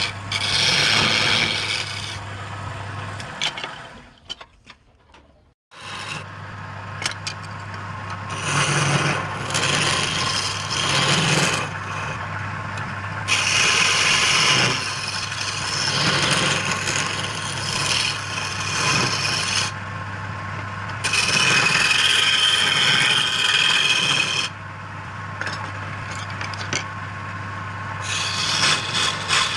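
Wood lathe running with a steady hum while the spinning wood is cut and scraped in uneven passes. The sound drops out briefly about four seconds in, then the lathe and scraping resume.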